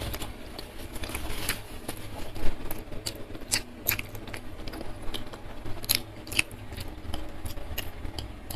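Close-miked mouth sounds of chewing and lip-smacking: a scatter of sharp, wet clicks over a low steady hum.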